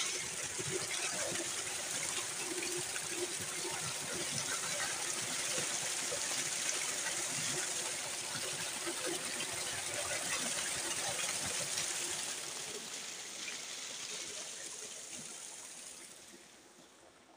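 Tubewell water gushing from the outlet pipe into a concrete tank, splashing over a hand cupped in the stream. The rush is steady, then fades away over the last few seconds.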